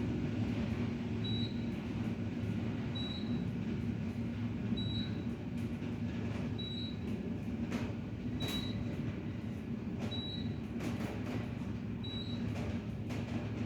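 Elevator cab in motion: a steady low hum and rumble, with a short high beep about every two seconds and a few scattered clicks.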